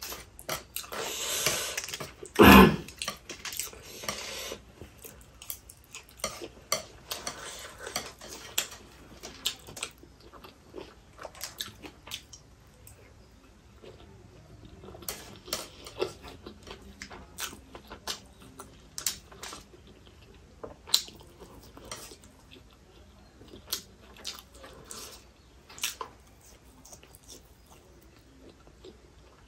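Close-miked eating sounds: chewing and wet mouth noises, with chopsticks clicking against a foil-lined tray. A louder rustling stretch in the first few seconds ends in a sharp thump, followed by scattered short clicks and smacks.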